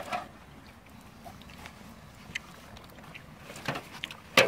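Wet keepnets of live fish being handled in a metal wheelbarrow: soft rustling with a few scattered light taps, then one sharp knock near the end.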